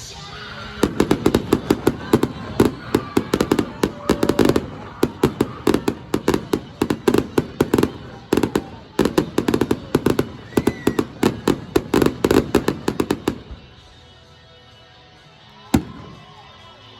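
Fireworks going off in a rapid barrage of sharp bangs and crackles, several a second, for about twelve seconds. The barrage then stops, and one last bang comes near the end.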